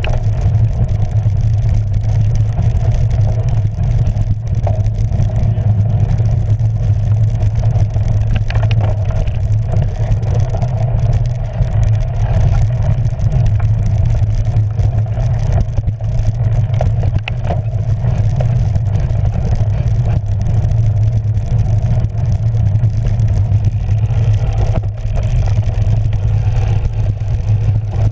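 Cyclocross bike ridden over frozen grass and leaf-covered dirt: steady rumble of the tyres and rattling of the bike, mixed with wind buffeting on the rider-mounted camera's microphone.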